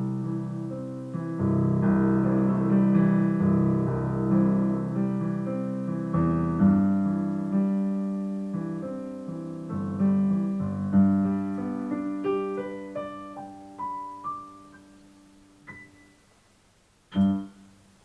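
Solo piano playing sustained chords, thinning out into a few single notes that climb higher and fade away, with one short, louder note near the end.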